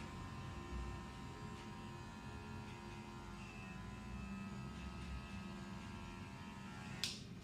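Electric hair clippers running with a steady hum while cutting a fade. There is a single sharp click near the end.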